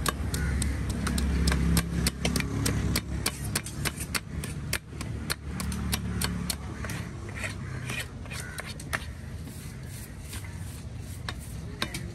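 Knife scraping scales off a red snapper on a wooden chopping block: a quick, irregular run of scratchy clicks. A low engine rumble runs underneath, heaviest in the first two seconds and again about six seconds in.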